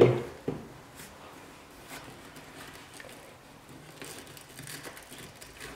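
Faint rustling and light knocks of a white PVC pipe fitting being wiped with a paper towel and handled on a workbench, with one sharper click about half a second in.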